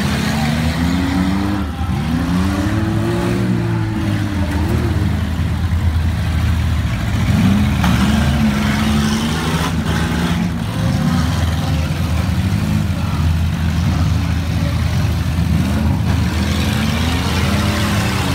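Engines of several front-wheel-drive demolition-derby cars revving and racing together, their pitch rising and falling again and again. A couple of collision bangs come partway through as the cars ram one another.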